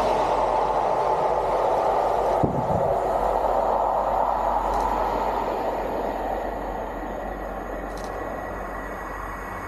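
High Speed Train (InterCity 125) running through at speed, its rear power car rushing past, then the rumble of the train fading slowly as it draws away. A single sharp thump about two and a half seconds in.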